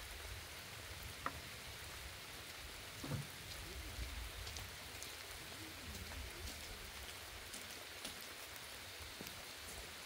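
Steady rain falling, with scattered fine drop ticks and a low rumble underneath; a single sharp click about a second in.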